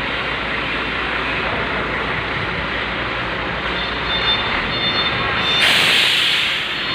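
Heavy vehicle running with a steady engine noise. About five and a half seconds in, a loud burst of hissing air lasts about a second.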